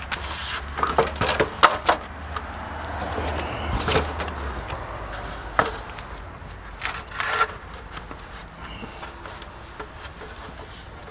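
Stepladder being handled and set in place: several sharp knocks and rubbing in the first two seconds, then single knocks around four, five and a half and seven seconds in. A low background hum stops about four and a half seconds in.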